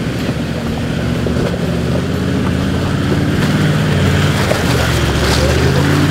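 Toyota Landcruiser 4WD engine labouring as it climbs out of a muddy, water-filled rut, with water and mud splashing around the tyres. It grows louder as the vehicle comes up close.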